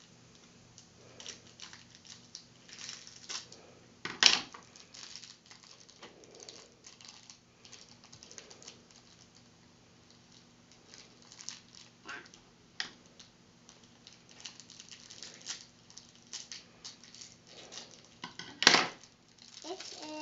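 Small plastic toy pieces and their wrapping handled and opened by hand on a tabletop: scattered light clicks, taps and rustles, with two sharper clicks, one about four seconds in and one shortly before the end.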